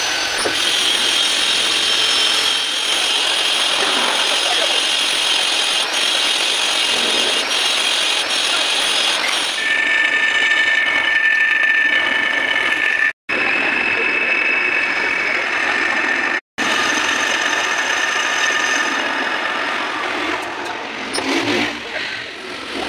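Metal lathe running with a cutting tool facing and turning a metal flange held in a four-jaw chuck: a steady machine drone with a whine from the cut, whose pitch changes about ten seconds in. The sound cuts out briefly twice near the middle.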